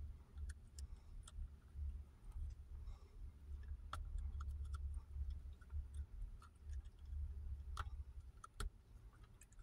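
Small dog chewing a raw broccoli stalk: faint, irregular crunching clicks, a few louder crunches among them, over a low rumble.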